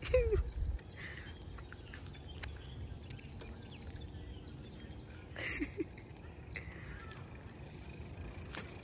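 Quiet outdoor ambience with faint bird calls. A short rumble of wind on the microphone comes at the start, and a brief voice-like sound about five and a half seconds in.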